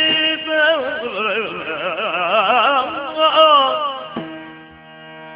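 Yakshagana Bhagavata's male voice drawing out a long melisma with a wavering, ornamented pitch over a steady drone. The voice fades about four seconds in, leaving only the drone.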